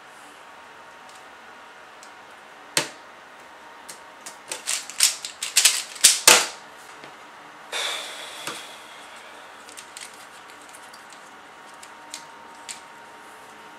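3x3 Rubik's cube turned by hand at speed, its plastic layers clicking. There is a single click, then a quick run of clacking turns about four to six and a half seconds in, a short rasping scrape just after, and a few light ticks.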